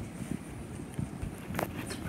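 Faint scattered knocks and shuffling, with one sharper click about one and a half seconds in.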